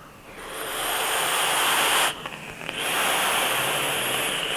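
A vaper taking a long direct-lung draw and then blowing the vapour out: two long, even breathy hisses of about two seconds each, with a short break about two seconds in.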